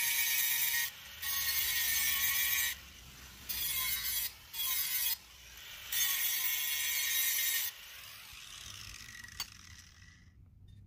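Electric bench grinder sharpening the edge of a steel riding-mower blade: five loud grinding passes of about one to two seconds each, broken by short gaps as the blade is lifted off the wheel. After about eight seconds the grinding stops and the grinder runs on softer, fading out about ten seconds in, with one sharp click just before.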